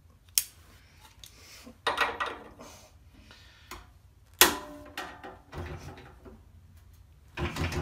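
Steel locking pliers being worked and clamped: a series of sharp metallic clicks and clacks with brief ringing, the loudest about halfway through.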